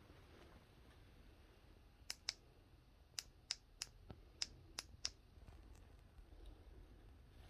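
Oxford heated-grip controller's push buttons clicking under a thumb, about nine quick presses over roughly three seconds, stepping the grip heat setting.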